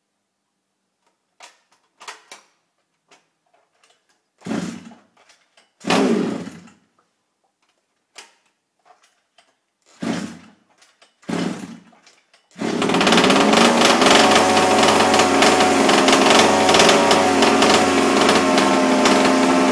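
HPI Baja 5B's 23cc two-stroke engine, fitted with its original muffler, being pull-started: a few short separate pulls of the recoil starter, then about two-thirds of the way through it catches and runs steadily.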